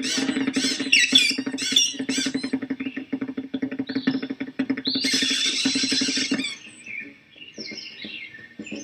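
Cartoon birds on a wire chattering in rapid, high squeaky peeps over a steady low hum, with a louder flurry about five seconds in. The chatter thins to scattered chirps for the last couple of seconds.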